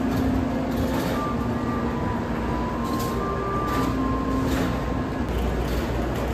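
Shinkansen platform ambience: a steady din of train and station noise, with faint hums that step between pitches.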